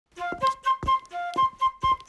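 Flute playing a quick tune of short, separate notes, with sharp taps among them.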